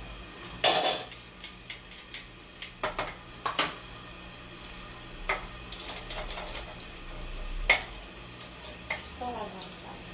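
Chicken sizzling in a frying pan, a steady frying hiss, with a few sharp knocks and clicks of a knife and utensils handled on the counter, the loudest about half a second in.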